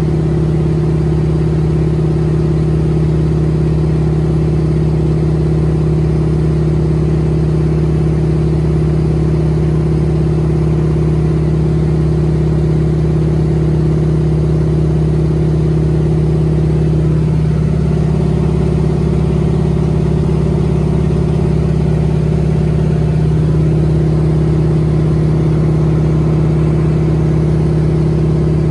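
North American Harvard's Pratt & Whitney R-1340 Wasp radial engine and propeller droning steadily in flight, heard from inside the cockpit. The note shifts slightly for a few seconds past the middle, then settles back.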